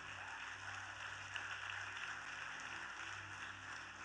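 Congregation applauding, a steady patter of many hands clapping over a low steady hum.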